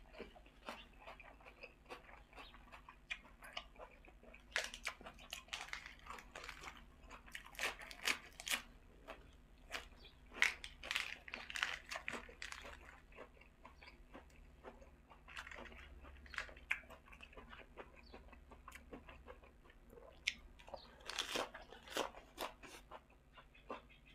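Close-up chewing and crunching of a mouthful of yam sai tan, a spicy pork offal salad, eaten with raw onion and fresh lettuce and herbs. Crisp crunches come in bursts, loudest about halfway through and again near the end.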